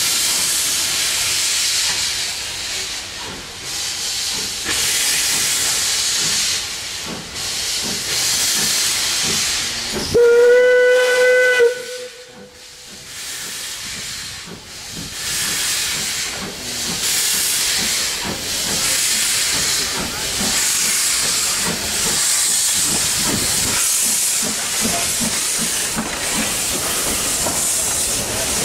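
Beyer Peacock 2-4-0 narrow-gauge steam tank engine pulling away with its train, its cylinder exhaust and open drain cocks giving a repeated hissing of steam. About ten seconds in, one short, loud blast on the steam whistle.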